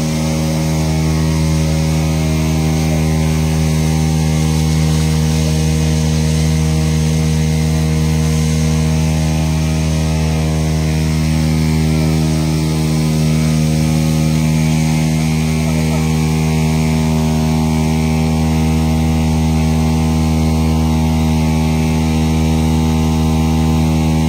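A pump engine runs at a constant speed, feeding the fire hoses, with no change in pitch, under the hiss of water spraying from the nozzles.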